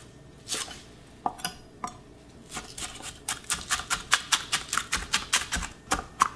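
Chef's knife mincing green onion on a wooden cutting board: a few scattered knocks, then from about two and a half seconds in a quick, even run of blade taps on the board, about six a second.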